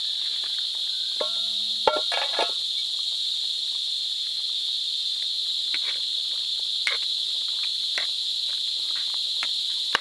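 Continuous high-pitched insect chorus, steady throughout. A few short knocks and scrapes of a spatula stirring in a metal pan, the loudest about two seconds in.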